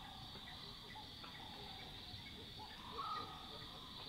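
Steady, high-pitched chorus of night insects (crickets) in the bush, with scattered short chirps and one brief, louder call about three seconds in.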